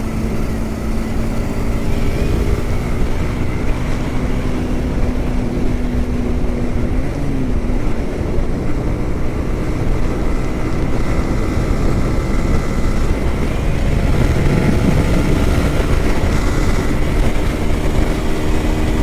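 Yamaha R15M motorcycle riding at steady cruising speed: the engine runs with a steady, barely changing pitch under heavy wind rush on the microphone.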